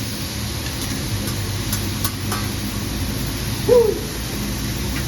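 Steady low hum of a restaurant hibachi room with a few faint light clicks, and one brief voice-like squeak a little over three and a half seconds in.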